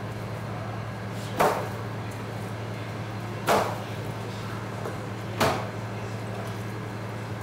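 Raw chicken halves handled in a plastic bucket: three short wet slaps about two seconds apart as pieces are lifted and dropped, over a steady low hum.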